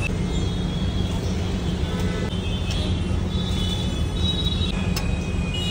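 Ram laddu (moong dal fritters) deep-frying in a large kadhai of hot oil, a steady sizzle over a constant low rumble of street traffic, with a few brief high squeals.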